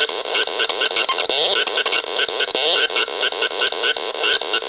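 VAPESONIC RX 21 putting out abstract radio-like noise: a dense hiss of static laced with rapid chirps that sweep upward and short stuttering blips, several a second.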